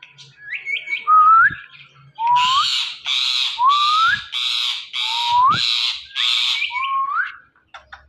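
Indian ringneck parakeets calling: a few short rising chirps and whistles, then a run of harsh squawks, close to two a second, mixed with rising whistles, stopping shortly before the end.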